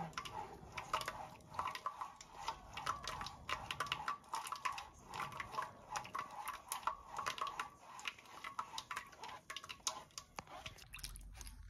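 Silicone spatula scraping and pressing ground soybeans against the fine mesh of a stainless steel sieve, a run of soft, irregular scrapes and clicks, straining the liquid off for soy milk.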